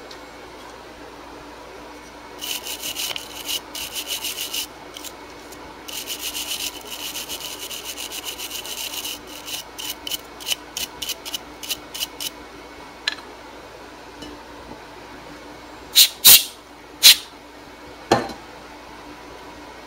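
A stiff-bristled brush sweeping machining chips off a milling-machine vise: quick runs of scrubbing strokes, then single strokes. Near the end come a few loud, sharp clacks.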